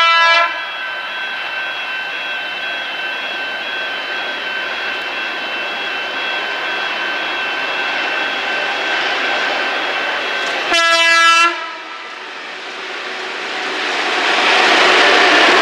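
Approaching freight train led by two Victorian B class diesel-electric locomotives: the locomotive horn sounds a short chord at the start and again about eleven seconds in. After the second blast the engine and wheel noise swells quickly as the locomotives run past close by.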